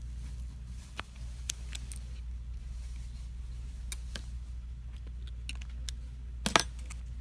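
Small scattered clicks and taps of tools on a disassembled smartphone's internal parts, with a sharper cluster of clicks near the end, over a steady low hum.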